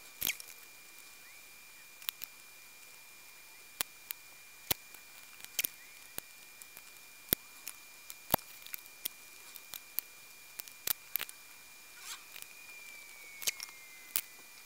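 Scattered, irregular sharp clicks and taps of a soldering iron tip and metal tweezers against a circuit board and component leads during hand soldering, over a faint steady high-pitched whine.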